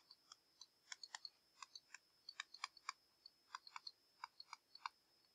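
Faint, irregular clicks and taps of a stylus writing on a tablet screen, a few a second, over a faint steady high-pitched whine.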